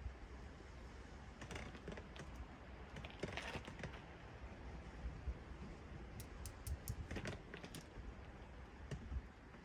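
Scattered light clicks and small clatters over a low steady rumble, including a quick run of sharp clicks in the second half.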